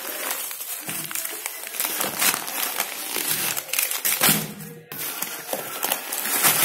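Bubble wrap and plastic sugar packets crinkling and rustling as they are handled and pulled out of a cardboard box, in irregular crackles, with a short break about five seconds in.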